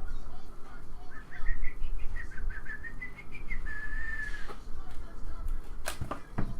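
Whistling: a run of short notes that climbs in pitch, then one held note, followed near the end by two sharp knocks.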